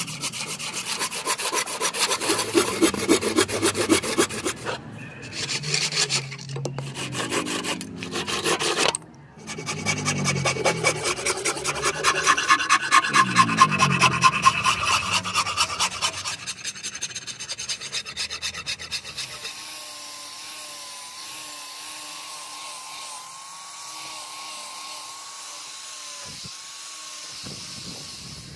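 Hand sawing through a hardwood plank, fast rhythmic saw strokes with a few short breaks, followed by a steady, quieter whine of an electric angle grinder with a sanding disc running against the wooden handle blank, its pitch wavering slightly.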